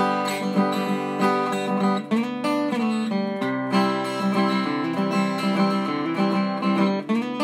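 Background music: acoustic guitar playing a bright, plucked tune.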